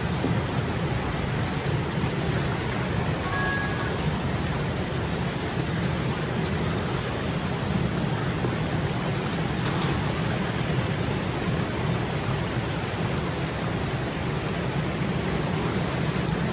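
Steady rush of turbulent water churning past a concrete channel wall. A faint splash about ten seconds in as the cast net lands on the water.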